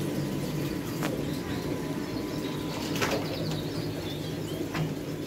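Shop ambience: a steady low hum with a few faint bird chirps about three to four seconds in, and a few soft knocks.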